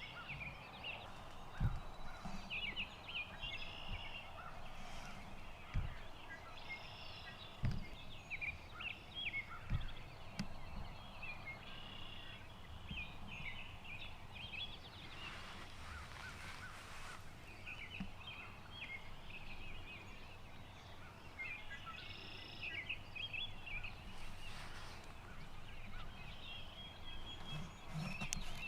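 Birds chirping and calling in a steady outdoor morning chorus, with a few soft low thumps in the first ten seconds.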